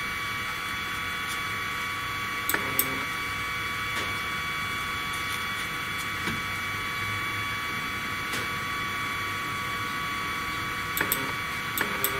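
Steady high-pitched electrical whine from the powered-up 3018 desktop CNC router, its spindle stopped and its stepper motors held energised. A few light clicks come in pairs about two and a half seconds in and again near the end.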